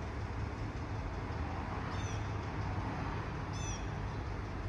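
Steady low rumble of an idling truck engine, with a bird chirping twice, about two and three and a half seconds in.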